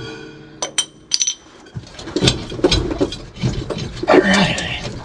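Hand ratchet clicking in irregular strokes as it backs out the lower mounting bolt of a motorhome's rear air bag. A few separate clicks come first, then denser clicking with metal rattles from about two seconds in.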